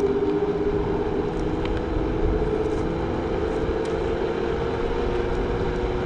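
Gyroor Urban Max C1 electric scooter under way at about 13.5 mph. Its motor gives a steady whine over low wind and road rumble.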